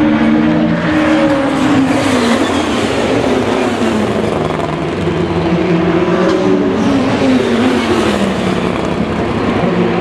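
2019 DTM touring cars with 2.0-litre turbocharged four-cylinder engines running loudly through the corner; the engine note drops in pitch twice as they slow.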